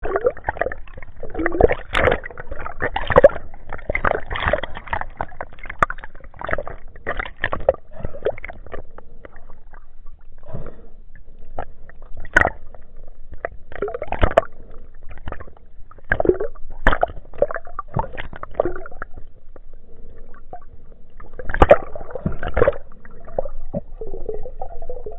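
Underwater water noise: irregular gurgling and sloshing with many sharp crackles and knocks, louder in scattered bursts, turning to a steadier hum near the end.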